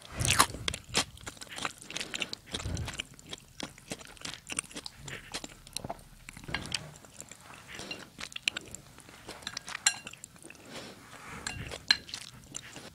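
Close-up eating sounds: a spoon and chopsticks clinking and scraping in a ceramic bowl of rice and smoked salmon, with chewing. There are many small clicks throughout and a few soft thuds.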